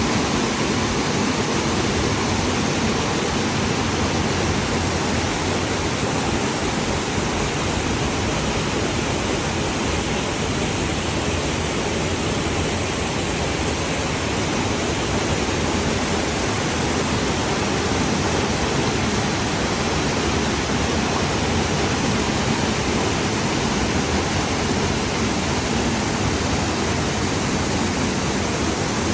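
Waterfall: the Jemez River pouring over the Soda Dam mineral formation, a steady, loud rush of falling water.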